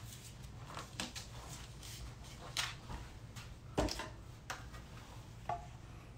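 A few faint, scattered clicks and knocks of small objects being handled over a low room hum, the loudest a little under four seconds in.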